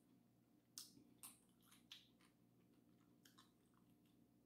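Near silence with a few faint, short wet clicks of a person chewing a barbecue pork burger with the mouth close to the microphone, the clearest about a second in and again near two seconds.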